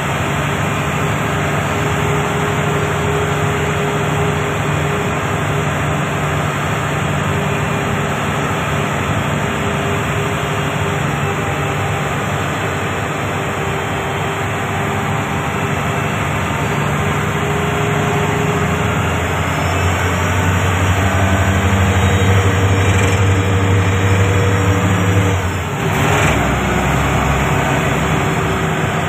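Komatsu HD465-7 haul truck's six-cylinder diesel engine running steadily at around 1,400 rpm as the truck rolls slowly in low speed, heard from inside the cab. Near the end the engine note dips briefly, and there is a single short knock.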